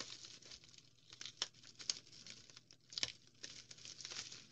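Plastic bubble wrap and tape crinkling and crackling in the hands as a scalpel cuts through the wrapping, in faint, irregular snaps.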